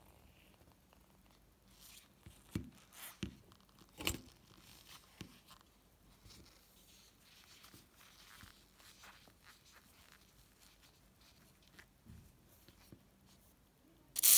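Small metal clicks and clinks as the pump rod and fittings of an antique gasoline blowtorch are handled and taken apart, with light rustling of work gloves. Near the end comes a loud, steady hiss as an aerosol can sprays through a red straw onto the threaded joint.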